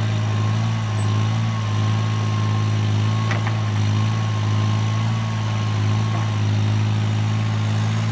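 Yanmar ViO mini excavator's diesel engine running at a steady speed while the boom and grab swing, with a faint wavering high whine over it and one brief click about three seconds in.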